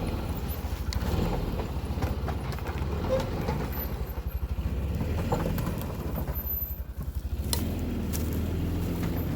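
A vehicle engine running steadily while it drags the old wooden outhouse on a chain, with scattered knocks, a few sharper ones near the end.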